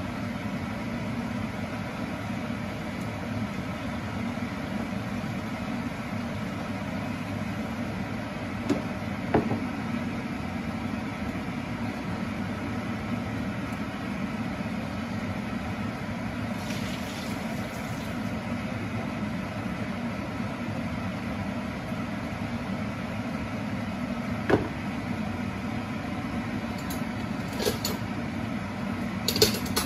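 Steady fan-like hum over a pan of vegetables and chicken liver simmering in broth on an electric stove. A few short sharp pops or ticks come through, around the middle and near the end.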